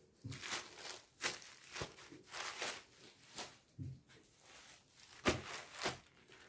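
Cloth rustling and swishing in irregular strokes as sari fabric is swept up off a cloth-covered table and a folded sari is set down in its place.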